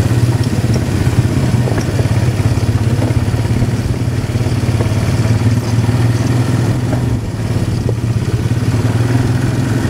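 ATV (quad bike) engine running steadily under way on a dirt trail, with the machine rattling over the ground.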